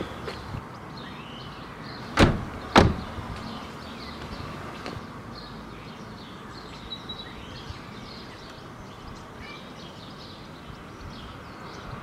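Two car doors slammed shut one after the other, about half a second apart, followed by steady outdoor background noise.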